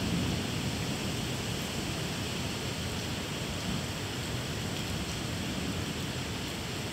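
Steady rain falling during a night thunderstorm, an even hiss with a low rumble underneath that is strongest at the start and slowly eases off.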